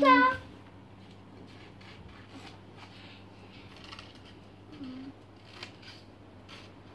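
Faint rustling and light ticks over a low steady hum, with a child's voice holding a sung note at the very start and a short hummed sound about five seconds in.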